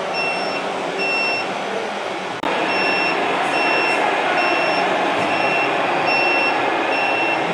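Reversing beeper of a radio-controlled scale model truck, giving short high beeps a little over once a second over a steady running hum. The background gets suddenly louder about two and a half seconds in.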